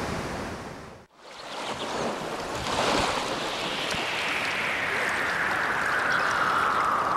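Waterfall roar fading out about a second in, then, after a short gap, small waves lapping and breaking on a lake shore. From about three seconds in, a long whoosh slides slowly downward in pitch over the waves.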